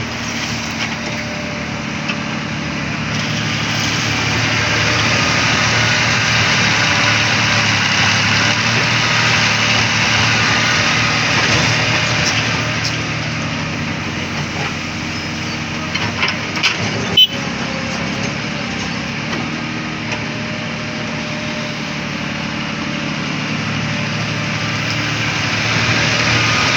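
Excavator's diesel engine running steadily, swelling louder for several seconds early on, with a few sharp knocks about two-thirds of the way through.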